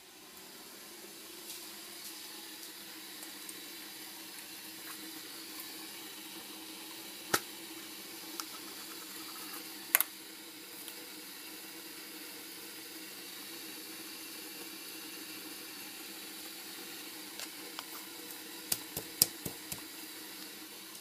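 Kitchen sounds: a steady hiss with a low hum throughout, and a sharp knock about ten seconds in as a ceramic mug is set down on the countertop. Near the end comes a quick run of clicks and knocks as a plastic-lidded container is handled.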